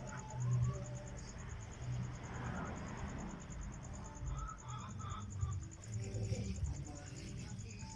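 A cricket chirping steadily in a fast, even pulse, with indistinct low sounds underneath.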